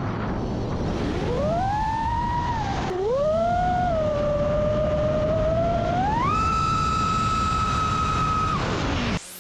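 FPV quadcopter's electric motors whining over a steady rush of propeller and wind noise, the pitch swooping up and down with the throttle, then holding high and steady before cutting off near the end.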